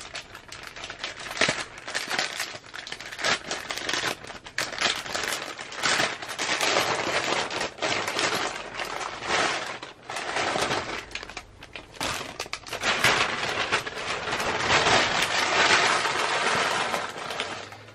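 Plastic packaging crinkling and rustling as it is handled, a dense run of quick crackles and clicks in uneven bursts, loudest near the end.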